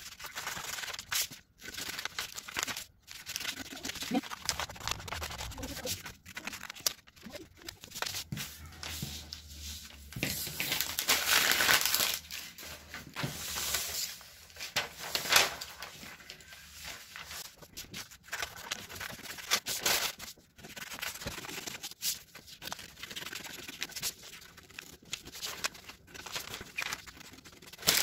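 Scissors cutting a paper sewing pattern, with the sheets of pattern paper rustling and crinkling as they are handled and turned. The loudest rustle comes about ten seconds in and lasts a couple of seconds.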